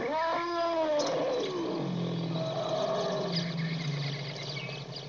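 African elephant calling: one trumpet-like call that rises then falls in pitch over about a second and a half, followed by a lower, longer call.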